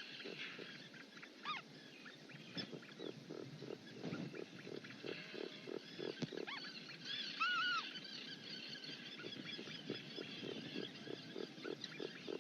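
Birds calling: short low notes repeated about three times a second, with scattered high chirps, including a loud double arched whistle about seven and a half seconds in.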